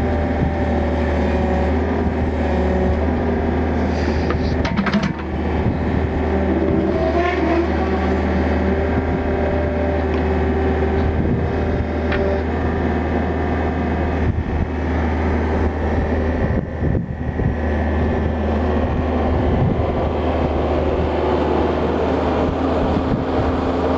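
Yanmar 50 mini excavator's diesel engine running steadily, with tones in the machine noise shifting now and then and a few sharp clicks or knocks.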